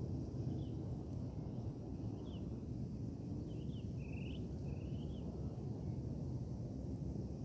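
Steady low rumble of wind on the microphone, with a bird's short high chirps scattered through it and a cluster of calls, including two longer rising notes, about four to five seconds in.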